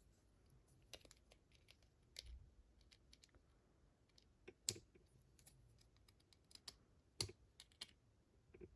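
Faint, scattered small clicks and taps of a metal tool working at a padlock's retaining clip, trying to pry it off, with two sharper clicks about halfway through and again a couple of seconds later.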